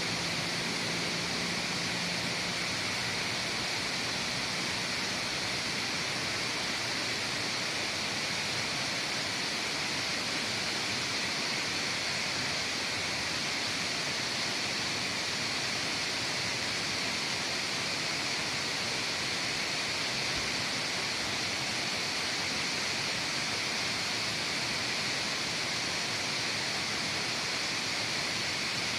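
Waterfall: water falling and splashing as a steady, even rush.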